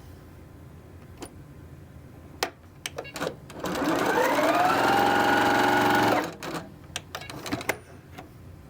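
Sewing machine stitching charm squares together in a seam. A few clicks come first, then about three and a half seconds in the motor speeds up with a rising whine, runs steadily for about two and a half seconds and stops. Several more clicks follow.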